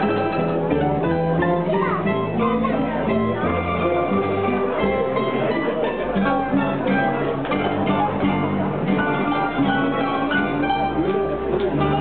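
Live mandolin ensemble (several mandolins with a guitar and a string bass) playing a tune: quick plucked melody notes over a low bass line.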